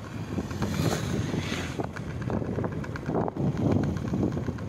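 Wind buffeting the microphone in gusts as the camera is carried along a road, over a low vehicle rumble.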